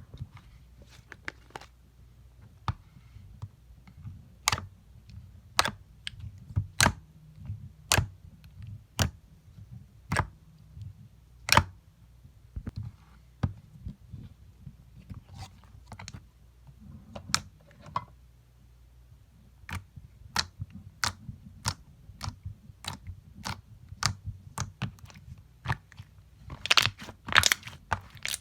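Hands handling a boxed set of slimes, making a series of sharp clicks, about one a second at first and faster in the second half, with a dense run of crackling clicks near the end.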